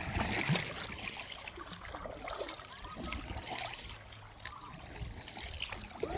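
Creek water trickling, with scattered small splashes and drips around a kayak.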